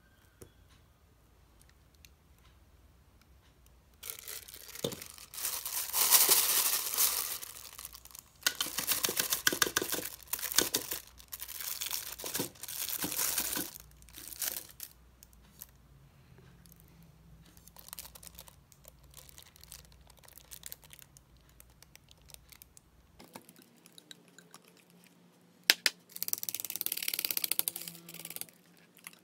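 Plastic piping bag crinkling as thick cupcake batter is scraped and spooned into it, in rustling bursts of a few seconds, with a sharp knock shortly before the last burst.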